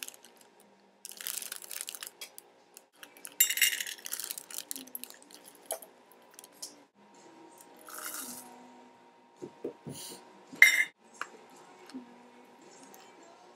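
Plastic bag of white chocolate chips rustling and chips pouring into a stainless steel measuring cup. Then sharp clinks of the cup and a spatula against the mixing bowl as the chips are tipped in and stirred into the batter, the loudest clink a little before the end.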